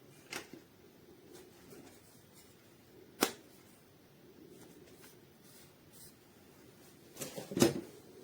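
A few sharp clicks and small knocks over faint room hiss: one sharp click about three seconds in, and a quick cluster of knocks near the end that is the loudest part.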